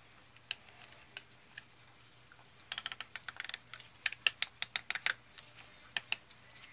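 Small metal clicks and taps of an Allen wrench working a set screw tight on a welding cable connector. A quick run of light clicks comes about three seconds in, then a series of sharper, louder clicks a second later.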